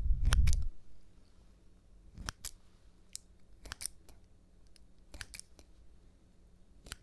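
Scissors snipping close to the microphone: crisp metallic snips, often in quick pairs, at irregular intervals. A low, loud handling rumble comes at the very start.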